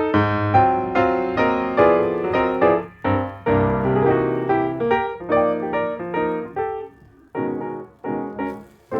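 Instrumental background music: a quick run of struck, fading notes and chords, thinning to a few separate notes with short pauses near the end.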